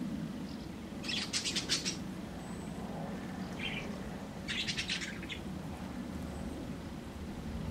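A small songbird calling twice, each time a short rapid chattering trill, about three seconds apart, with a faint single chirp between them, over a steady low background noise.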